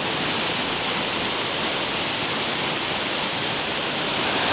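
Heavy tropical rain falling steadily, an even rushing hiss with no break.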